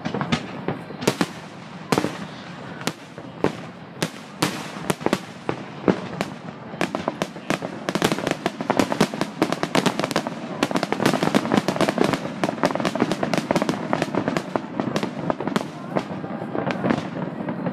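Fireworks display: aerial shells bursting in sharp bangs, a few seconds apart at first, then coming thick and fast with dense crackling from about seven seconds in.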